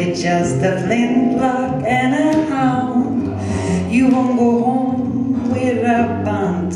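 A woman singing into a microphone with double bass accompaniment, her voice sliding between held notes over steady low bass notes.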